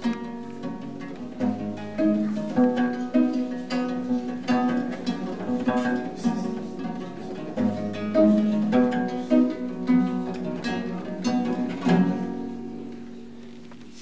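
Viola da gamba plucked, playing an instrumental close of steady, evenly paced notes over a low bass; the last note is struck about twelve seconds in and rings out.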